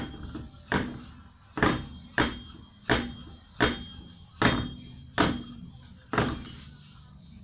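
Sharp metallic knocks, about nine of them less than a second apart, as the loosened wheel bolts of a steel wheel are worked out by hand and the wheel turns on its hub.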